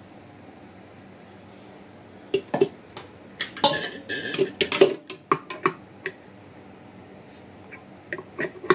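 Clatter and knocks of kitchen utensils as a food chopper's jar and blade assembly are handled: an irregular run of sharp knocks starting about two seconds in, and a few more clinks near the end.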